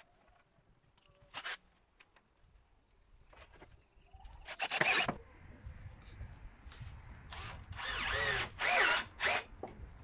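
Cordless drill-driver running in several short bursts, driving screws through a batten into wooden fence slats; one burst about halfway through and three more close together near the end, the motor's whine rising and falling. Light knocks of wood being handled come before.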